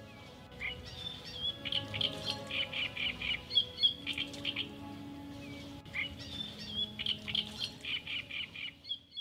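Birdsong: quick high chirps and warbling trills over a soft sustained music background, the same run of chirping coming twice.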